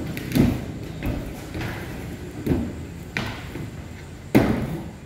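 Skateboards in an indoor skatepark: wheels rolling over concrete and ramps, with several sharp board clacks and thuds, the loudest about four and a half seconds in, each echoing through the hall.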